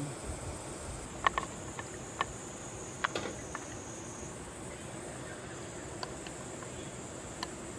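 Steady high-pitched insect chirring, with a handful of short, light clicks and taps scattered through it, the sharpest a little after a second in and again about three seconds in.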